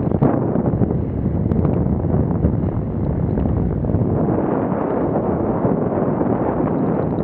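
Steady wind noise buffeting an action camera's microphone, from skating at about 14 mph.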